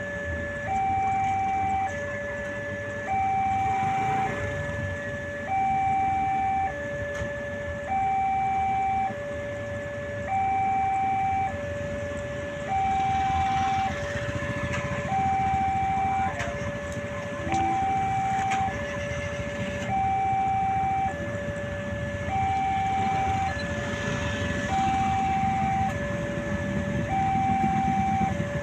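Indonesian railway level-crossing warning siren, the crossing's newer type, sounding a steady two-tone hi-lo alternation, each tone lasting about a second, over a steady rumble.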